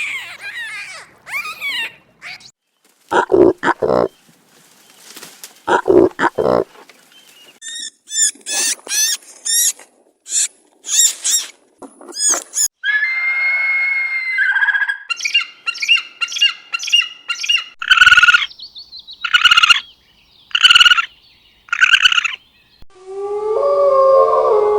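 A string of different animal calls cut one after another: a few low calls in the first seconds, then a run of high chirping calls, then a series of repeated higher cries near the end.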